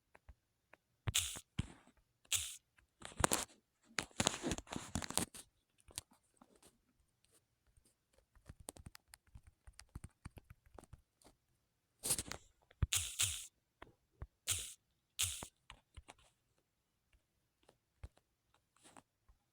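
Short bursts of rustling noise, each under a second, in clusters, with scattered small clicks between them.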